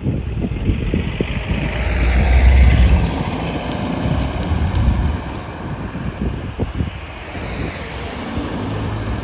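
A car drives past close by over the crossing, its tyre and engine noise swelling to a peak about two to three seconds in and then fading as it moves away. Wind buffets the microphone throughout.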